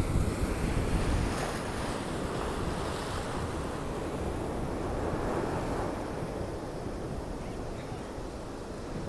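Ocean surf washing and foaming around rocks at the shoreline, with wind buffeting the microphone in gusts that are strongest in the first second or so.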